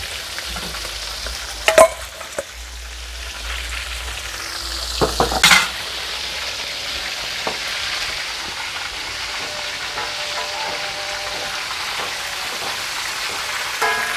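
Chilies and spices frying in hot oil in a wok, with a steady sizzle. A metal spatula stirs and clinks against the wok a few times, loudest about five seconds in.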